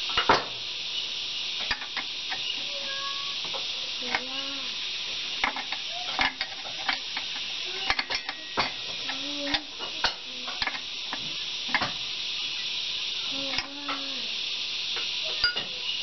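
Irregular metallic clicks and clinks of a hand wrench on the air filter's centre stud and metal housing of a JCB backhoe engine as the filter is fastened, with a few short squeaks, over a steady high hiss.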